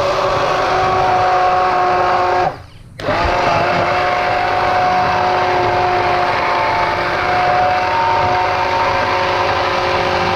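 Hand-held stick blender running steadily, pureeing thick soup. It stops briefly about two and a half seconds in and then starts again, its whine dipping slightly as it restarts.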